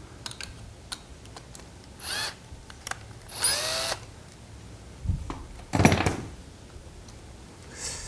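Handheld drill-driver running in three short bursts, the longest about a second in the middle with the motor spinning up, as it drives the clamp bolts of a 7-inch angle-grinder dust shroud tight. Light clicks and knocks of handling come between the runs.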